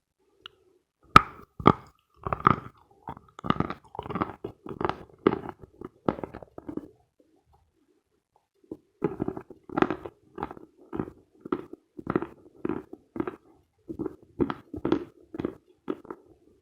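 Close-up crunching and chewing of Khrapovsky chalk: a sharp bite about a second in, then steady chewing at about two crunches a second. The chewing pauses for about two seconds midway, then starts again.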